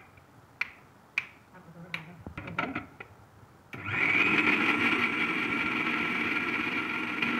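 Plastic clips on a mixer grinder jar's lid snap shut and the jar clatters onto its base. About four seconds in, the mixer grinder's motor starts suddenly and runs steadily with a high whine, beating eggs into powdered sugar.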